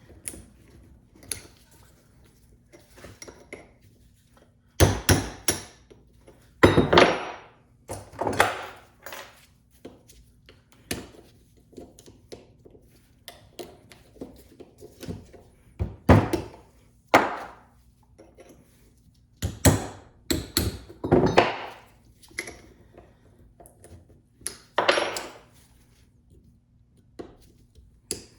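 Hammer blows on the steel double cardan joint of a drive shaft while it is being knocked apart: about a dozen sharp, irregular strikes, some in quick runs of two or three, with quiet gaps between.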